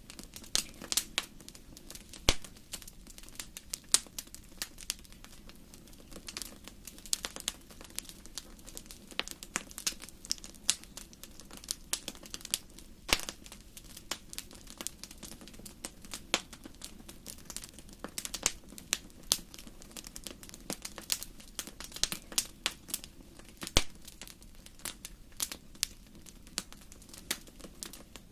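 Campfire burning, with many irregular sharp crackles and pops over a low steady rush of the flames.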